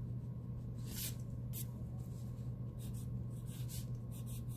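Pencil scratching on paper in short strokes as a word is handwritten, the strokes coming closer together in the second half, over a steady low hum.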